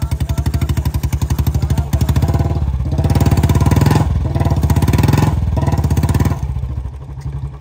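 Royal Enfield Bullet's single-cylinder engine thumping at a low, even beat, then revved up about two seconds in and held high with two brief dips before easing back toward idle near the end.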